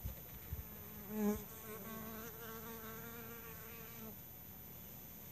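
Honey bees buzzing in flight at the hive entrance, a wavering wing hum that swells loudest as a bee passes close about a second in and fades out after about three seconds. A few low thumps come at the very start.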